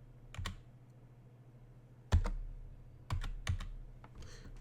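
A few separate computer keyboard key presses, the loudest about two seconds in with a heavier knock, then three more spaced clicks.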